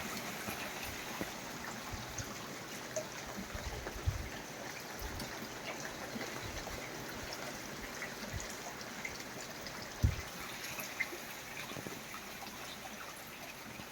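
Rainwater trickling and dripping steadily as a heavy thunderstorm downpour eases off, with a few brief low thumps, the clearest about ten seconds in.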